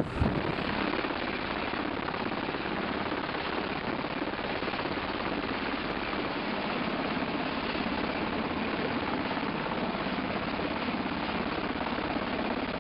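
MH-60 Seahawk helicopter running on a ship's flight deck with its rotors turning: a steady, even engine and rotor noise.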